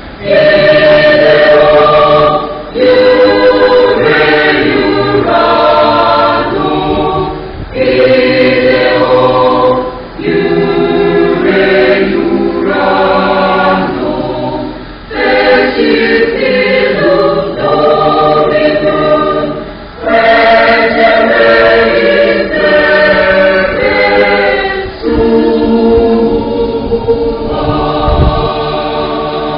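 A church choir singing in phrases of a few seconds each, with short breaks between them.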